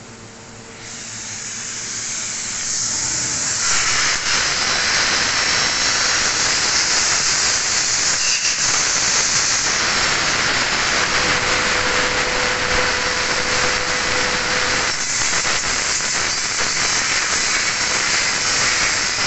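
Fiber laser cutting 1.5 mm film-covered stainless steel with compressed-air assist gas: a loud, steady hiss of the air jet at the cutting head that builds up over the first few seconds, then holds, dipping briefly twice.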